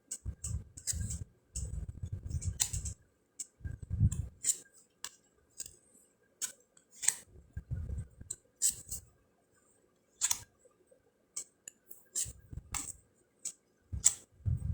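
Round cardstock fortune cards being flipped through and handled: a run of sharp, irregular snaps and clicks from the card edges, with soft low thumps of the cards and hands on the table.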